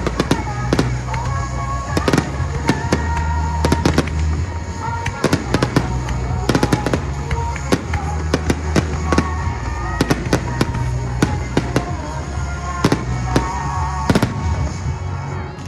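Fireworks grand finale: rapid bursts and crackling reports of aerial shells, many bangs close together, with whistling glides among them. Music plays underneath throughout.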